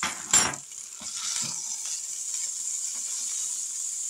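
A metal fork and knife clink and scrape against a plate and the grill pot as cooked T-bone steaks are lifted out of an indoor Foodi grill: a few sharp knocks in the first second and a half. A steady high hiss from the hot grill runs underneath.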